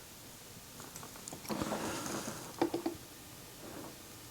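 Faint soft handling sounds with a few light clicks a little past halfway, as cream is added to cups of coffee.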